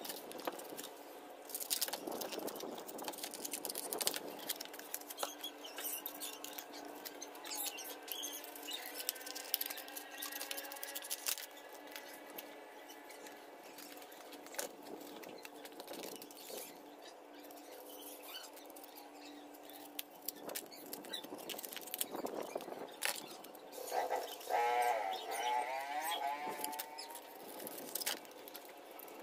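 Hands working foam pieces with a utility knife on a plastic cutting mat: scattered rustling, scraping and small clicks, with a short squeaky creak of foam rubbing on foam near the end.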